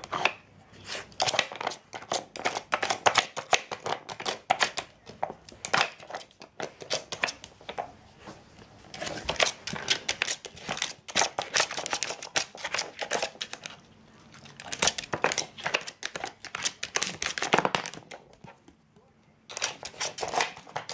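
Dogs working a wooden puzzle feeder: its tiles and board clatter as they are nosed and pawed, a dense, irregular run of clicks and knocks with a brief lull near the end.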